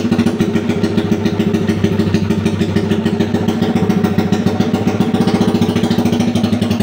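Yamaha Sniper 135's single-cylinder four-stroke engine idling steadily, its exhaust beating in a rapid, even pulse.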